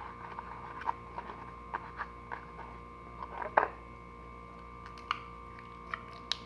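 Clear glue-and-borax slime being kneaded and squeezed by hand, giving irregular sticky clicks and squelches, the loudest about halfway through, over a steady low hum.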